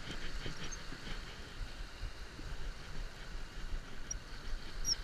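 Steady wind rumble on the microphone and small waves washing onto a sandy shore, while a conventional saltwater reel is cranked to bring in a hooked fish. Two faint short high chirps come near the end.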